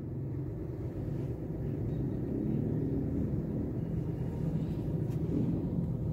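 Toyota Belta's 1KR-FE three-cylinder petrol engine idling steadily, a low, even rumble.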